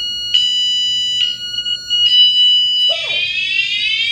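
Wireless vibration-activated alarm on an electric dirt bike sounding loudly as it cycles through its siren tones. A shrill high tone switches between two timbres about once a second, then about three seconds in it changes to a rising, sweeping siren wail.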